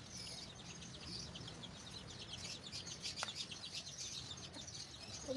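Small birds chirping continuously, a dense run of many quick, high chirps, with one brief click about three seconds in.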